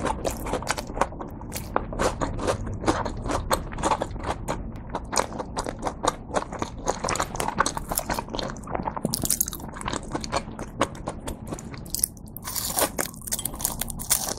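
Close-up crunching and chewing of a crispy breaded cheese pork cutlet (cheese tonkatsu), a fast run of crackly crunches. There is a short lull about twelve seconds in, then a fresh crunchy bite near the end.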